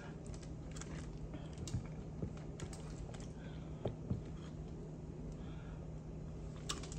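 Scattered light clicks and clacks of black mussel shells knocking together as they are picked through by hand, over a faint steady low hum.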